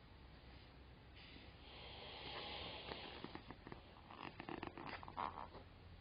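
A person slurping instant yakisoba noodles with a quiet hissing intake for a couple of seconds, then chewing with a run of short wet mouth clicks.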